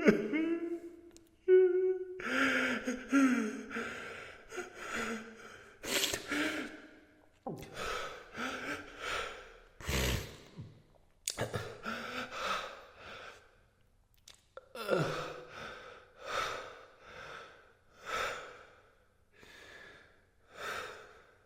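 A man crying: a short voiced, moaning cry at the start, then shaky sobbing breaths and gasps about one a second, growing quieter toward the end.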